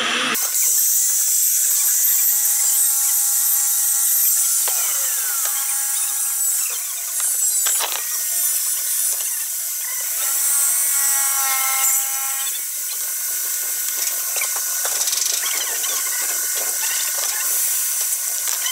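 Metalworking tool on stainless-steel sheet: a steady high hiss with ringing, squealing tones, some sliding down in pitch about four to six seconds in, and a short sharp scrape near eight seconds.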